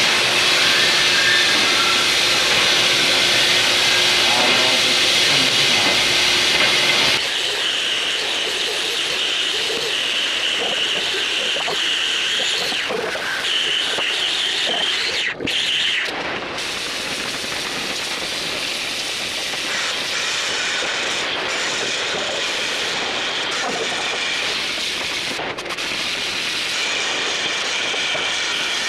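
Oxy-fuel cutting torch hissing steadily as it cuts through steel plate. The hiss is a little louder for the first several seconds and briefly drops out twice.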